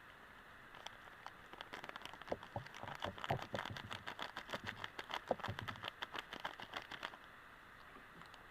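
A quick, irregular run of light clicks and taps from about one second in, thickest in the middle and stopping about seven seconds in, over a steady background hiss.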